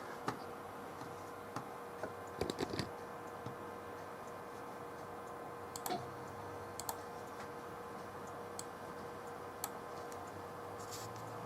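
Sparse light clicks and taps, with a quick cluster about two and a half seconds in, over a steady electrical hum.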